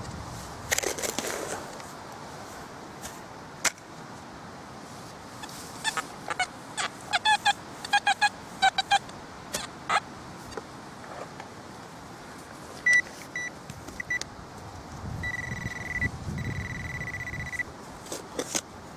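Metal detector signalling over a buried target: a quick run of short chirps, then short high beeps that lengthen into two held tones near the end.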